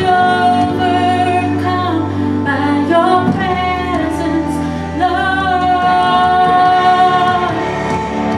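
A woman singing a slow worship song in long held notes over steady instrumental accompaniment.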